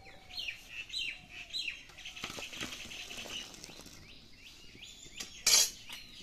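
Small birds chirping, with repeated short falling chirps about twice a second, over the soft splashing hiss of boiled mung dal and drumstick pieces being poured from a wok into a steel bowl. A short loud noise comes near the end.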